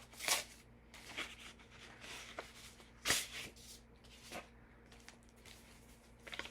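Paper packaging and printed booklets rustling and crinkling as they are handled, in short irregular bursts with a few light knocks, the loudest about three seconds in.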